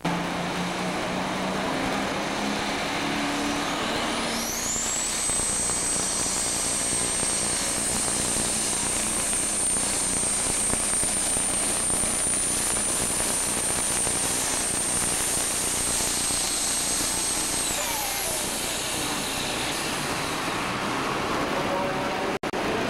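Super stock pulling tractor's turbocharged diesel engine at full throttle hauling a weight-transfer sled. A high turbo whine climbs about four seconds in, holds steady for some fourteen seconds, then falls away as the engine throttles back.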